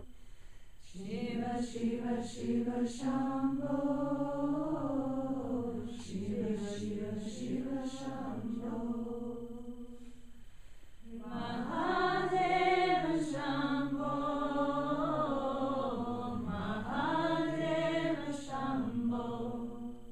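A group of voices chanting a devotional Shiva mantra together without accompaniment, in long sung phrases with a short break about halfway through.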